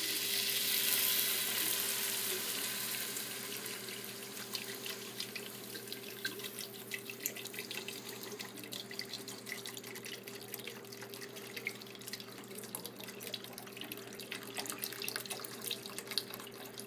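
Chicken broth pouring from a 32-ounce carton into a hot pan, a long pour that is loudest about a second in, then thins out into fine crackling and bubbling of the liquid in the pan.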